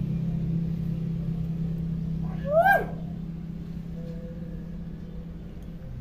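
Hill myna giving one short call about halfway through that rises and then falls in pitch. Behind it, a low engine hum fades away over the first few seconds.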